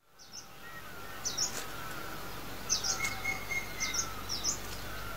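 Bird chirping in short, high repeated notes, a few at a time, over a steady background hiss of outdoor ambience, fading in at the start.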